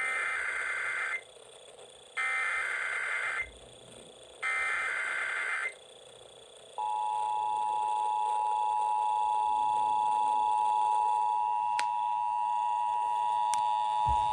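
Emergency Alert System (EAS) encoder tones: three SAME header data bursts, each a warbling burst of about a second with short gaps between, open the alert. About seven seconds in, the steady two-tone EAS attention signal starts and holds on, announcing the alert, here a required weekly test.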